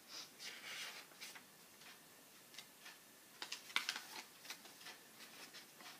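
Faint rustle of paper just after the start, then a handful of light ticks and taps a little past halfway, as the pages of a book are handled and turned.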